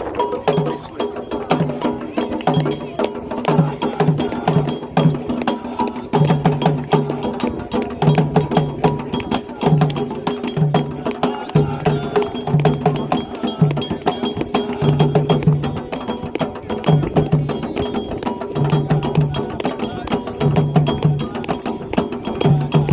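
Candomblé toque played on atabaque hand drums: low drum tones in short repeated phrases under a fast, steady stream of sharp strikes keeping the rhythm.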